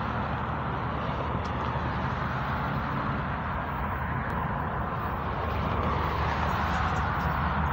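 Loaded BNSF coal train approaching from a distance behind GE ES44AC and EMD SD70ACe diesel locomotives: a steady rumble whose low drone grows slightly louder in the second half.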